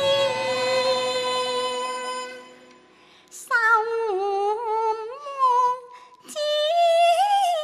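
Cantonese opera singing: a single voice sustains a long note that fades away. After a brief pause, a drawn-out phrase follows with the pitch sliding and wavering through ornaments, ending in a held note with vibrato.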